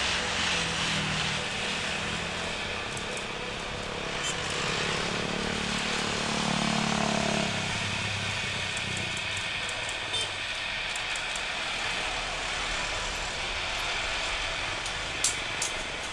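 Jet engines of a Boeing 787-9 Dreamliner landing, a steady rumbling noise that swells about six to seven seconds in as the aircraft touches down. A couple of sharp clicks near the end.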